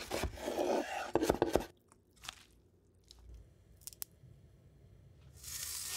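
Chef's knife slicing through a head of red cabbage on a wooden cutting board: a quick run of crisp, crunching cuts in the first couple of seconds. After that come a few faint clicks, and a hiss near the end.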